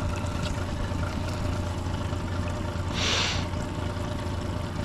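Boat's outboard motor running steadily at low trolling speed, a constant low hum. About three seconds in comes a short hissing burst of noise, like a splash or spray.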